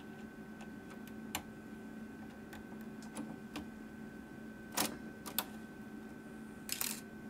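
Sharp mechanical clicks from the Sony floppy drive of a Macintosh SE/30 as a 3.5-inch disk is handled at the slot and comes out, the loudest about five seconds in and a short cluster near the end, over a steady hum.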